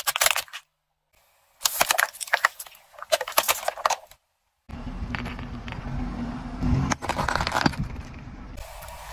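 A car tyre rolling over and crushing brittle, crunchy objects: bursts of crackling and snapping with short silences between them, then a longer stretch of crunching over a low rumble that fades near the end.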